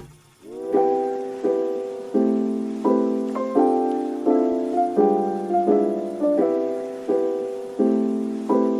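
Background piano music: chords struck at a steady pace, each one fading away before the next.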